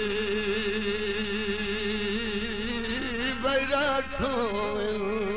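Punjabi folk dohra singing: a male voice holds a long note that wavers in pitch over a steady low drone, then runs through a short melodic turn about three and a half seconds in before settling back on the held note.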